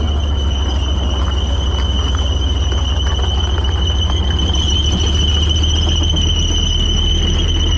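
Tank driving slowly past on gravel: a deep engine and track rumble with a steady high-pitched squeal from the running gear over it.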